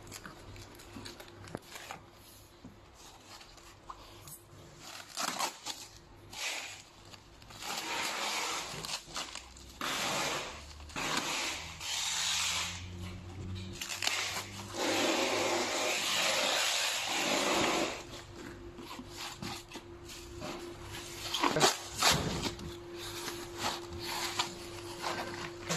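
Plastic wrap and bubble wrap rustling and crinkling as packed machine parts are handled and pulled out of a foam-lined box, loudest in a long stretch through the middle, with a few sharp knocks of parts or packing against the box.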